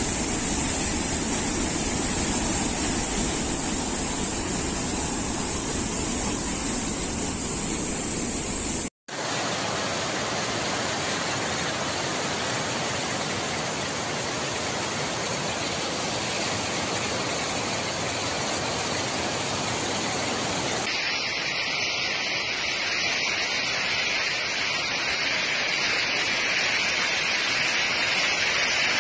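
Floodwater rushing over a waterfall and down a swollen river: a loud, steady noise of torrential water. It cuts out for an instant about nine seconds in and changes tone abruptly about twenty seconds in, where one recording gives way to another.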